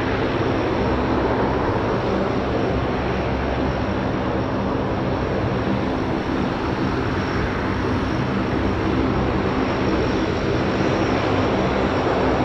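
Twin turbofan engines of a Belgian Air Component Embraer E145 jet running steadily: a continuous rushing noise with a low hum and a thin high whine.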